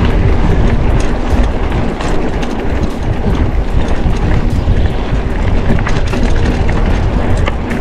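Wind rushing over the camera microphone while a mountain bike rides a dirt road, with frequent small rattles and knocks from the bike over the rough surface.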